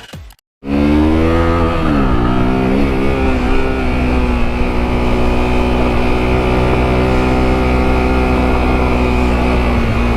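Motorcycle engine running under way, its pitch dropping about a second in and then holding steady.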